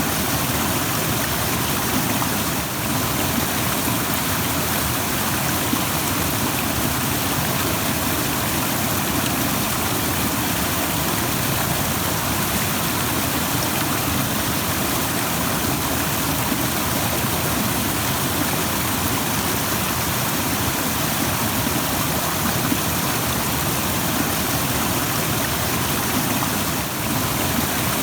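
A rushing stream: steady, loud white-noise rush of fast-flowing water.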